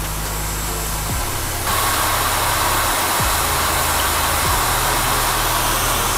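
Steady hiss from a stovetop-heated lever espresso machine while an espresso shot is pulled. It grows louder about one and a half seconds in and then holds steady, over background music.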